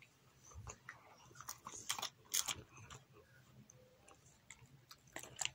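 A pit bull chewing a bite of hot dog it has just taken from a hand: faint, irregular clicks and smacks of its jaws.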